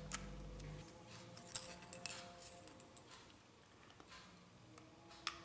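Faint clicks and clinks of small metal alligator-clip test leads and a circuit breaker being handled, with faint music under them.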